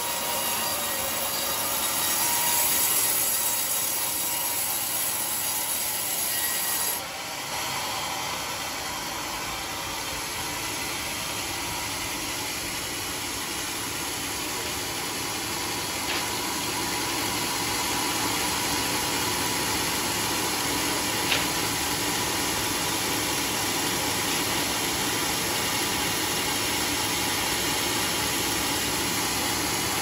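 Sawmill running and sawing an old coconut palm (glugu) log: a steady mechanical whir and rasp of the saw blade and its motor, with an abrupt change in the sound about seven seconds in.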